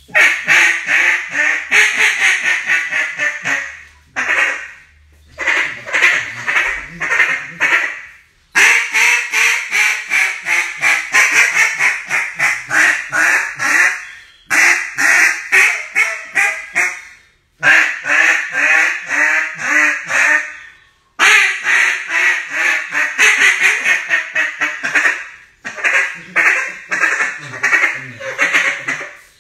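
A Mondo duck call blown by hand in runs of rapid, loud quacks, about seven sequences of several seconds each with short breaks between them.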